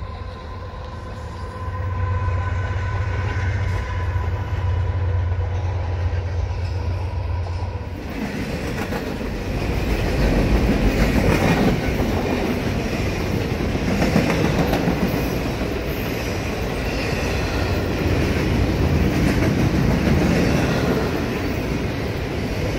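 Double-stack container train passing at speed. For about the first eight seconds a steady low drone with a thin whine over it, then a sudden change to the loud rolling rumble and clatter of the container cars' wheels on the rails.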